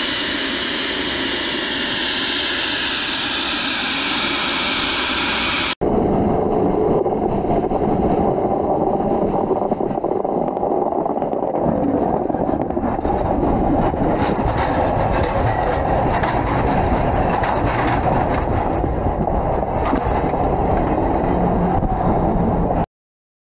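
Nickel Plate Road 765 steam train: about six seconds of the locomotive hissing steam, then, after an abrupt cut, railcars rolling past close to the rails with a rapid clatter of wheels over the track. The sound cuts off suddenly near the end.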